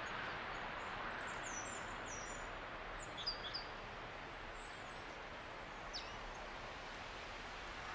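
Faint steady outdoor hiss with a few short, high bird chirps, a cluster of them between about one and three and a half seconds in and one more about six seconds in.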